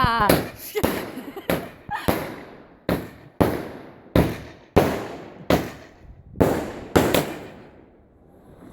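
Multi-shot firework cake going off: a whistle dies away at the start, then a quick run of sharp bangs, about two a second, which stops about seven seconds in.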